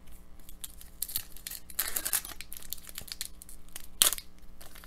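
Foil wrapper of an Upper Deck hockey card pack crinkling and tearing as it is handled and opened, in irregular crackles, with one sharp, loud crackle about four seconds in.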